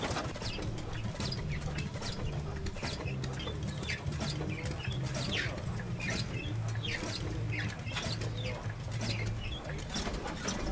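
Christoph & Unmack stationary engine turning over with its flywheels spinning, giving a low, uneven hum, with repeated short high chirps that slide downward in pitch throughout.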